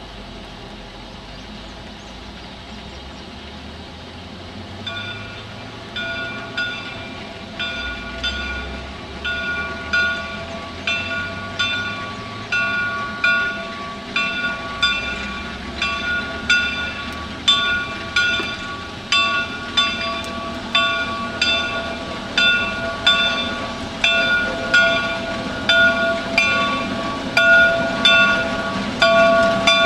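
Shay geared steam locomotive working past with a passenger train. A low rumble gives way, about five seconds in, to a regular clanking beat with ringing metallic tones, a bit over once a second, growing steadily louder as the engine draws near.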